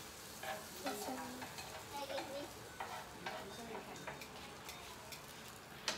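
Food sizzling on a tabletop grill pan, with scattered light clicks and taps of utensils against it.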